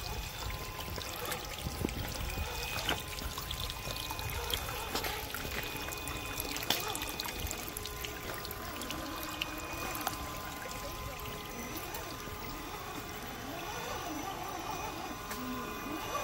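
Shallow creek water trickling and splashing over rock ledges as a 1/10-scale RC crawler drives through it, with a faint steady whine alongside and scattered small clicks.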